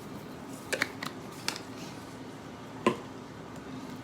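A few light clicks and taps of kitchen containers and utensils being handled, the loudest near the end, over a faint steady hum.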